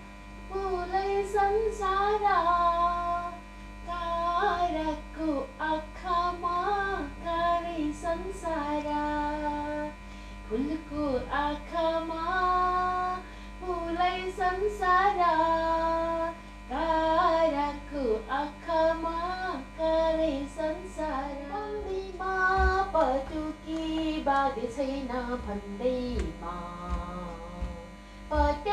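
A woman singing a song solo, in phrases of held, wavering notes with short breaks between them.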